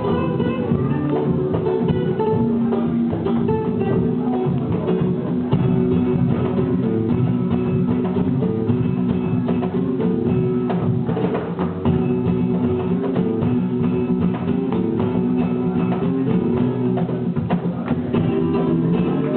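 Flamenco music played by a band, led by acoustic guitar, with short percussive strokes running through it.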